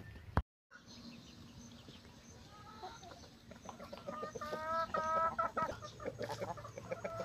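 Chickens clucking: a run of short repeated calls that begins about two and a half seconds in and grows louder toward the end. A sharp click and a moment of silence come just before, near the start.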